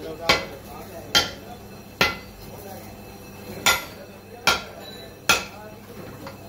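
Sharp metal knocks during assembly of a car's coil-spring shock absorber strut: two sets of three strikes, each spaced a little under a second apart, with a pause between the sets.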